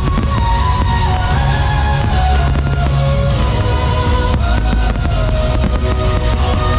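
Music accompanying a pyromusical fireworks display, a melody over strong bass, with fireworks bursting in scattered bangs through it.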